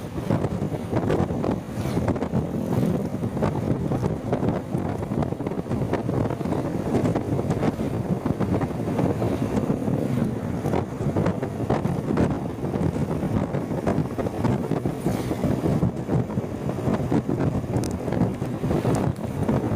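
Wind rumbling and buffeting on the microphone over the steady noise of a moving vehicle, loud enough to drown out the rider's voice.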